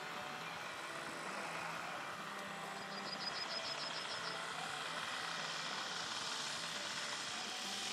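Twin DLA 32 petrol engines of a large RC Transall C-160 scale model droning steadily on a low landing approach, getting slightly louder as the plane comes closer. A brief rapid high chirping sounds about three seconds in.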